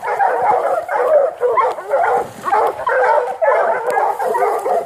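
Several dogs barking and yelping at once, a loud, continuous chorus of overlapping calls.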